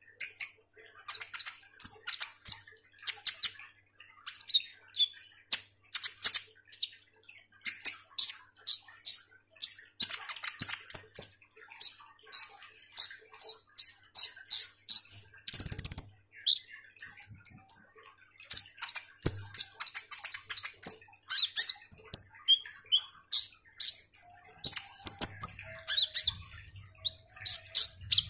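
Male sunbird (kolibri ninja) singing busily: a fast, near-continuous chatter of short, sharp high chirps and brief trills. About halfway through comes one short, loud noise.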